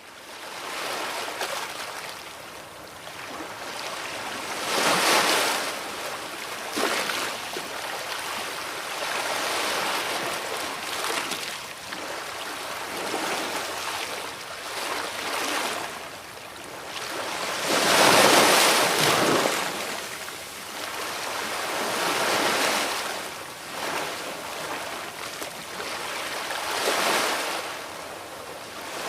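Sea waves breaking and washing on the shore, a continuous rush that swells and falls back every few seconds, with the largest wave crashing about two-thirds of the way through.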